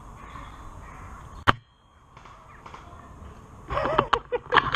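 A single sharp snap about a second and a half in. Near the end, loud irregular rustling and crackling of dry leaves close to the microphone.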